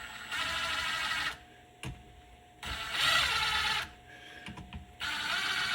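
Small bolts on a Yamaha TTR 125's clutch being spun down with an 8 mm socket, alternating from bolt to bolt. There are three whirring runs of about a second each, and the bolts are being bottomed out ahead of torquing.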